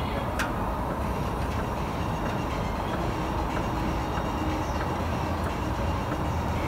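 A car driving: steady road and tyre rumble, heavy in the low end, with a few faint light knocks.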